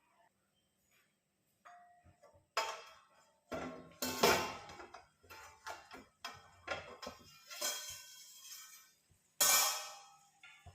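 Metal kitchenware clanking: a series of sharp clangs that ring on briefly, the loudest about four seconds in and another near the end.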